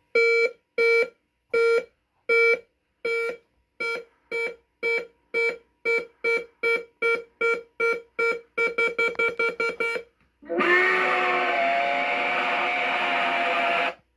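Countdown beeps from a Halloween prop's sound-effects board through a small USB speaker, speeding up from about one every 0.7 s to about five a second, then a loud noisy blast with wavering tones in it for about three and a half seconds that cuts off suddenly.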